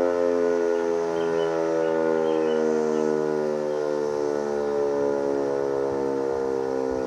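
Sentry 3V8 outdoor warning siren sounding its attack signal: a loud, steady chord of several tones that slowly sags in pitch.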